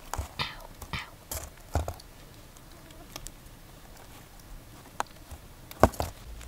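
Cooked hot dogs being slid off wooden roasting sticks and dropping onto a sheet of cardboard: a string of short knocks and scrapes, the loudest near the end.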